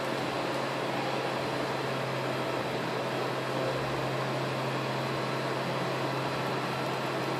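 Steady mechanical hum with an even hiss underneath, unchanging throughout.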